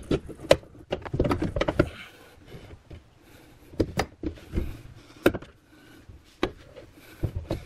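New trunk-lid torsion bar on a 2016 Hyundai Elantra being worked into its mounts and clip by hand, the bar clicking and knocking against the lid's sheet metal: a quick run of clicks in the first two seconds, then single clicks and taps every half second or so.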